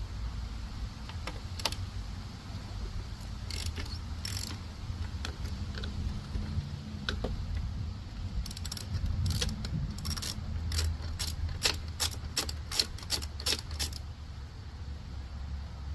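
Metal parts and hand tools clicking and clinking during workshop work, a few scattered clicks and then a quick run of about a dozen sharp clicks over several seconds, over a steady low hum.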